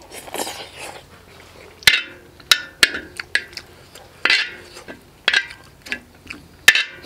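Metal spoon scraping and clinking against a metal griddle and bowl as noodles are scooped up. A scrape comes first, then a string of about ten sharp, ringing clinks at uneven intervals.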